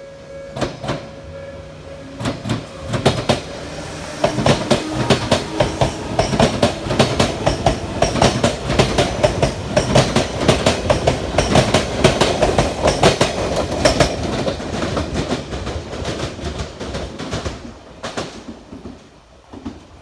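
Odakyu electric train passing over rail joints, its wheels beating out a rhythmic "dadan, dadan-dadan" clatter. The clatter builds over the first few seconds, holds loud through the middle and fades away near the end.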